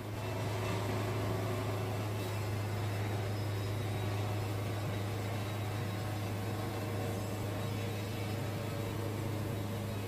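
Wood-Mizer LT70 band sawmill running with an even, steady low hum.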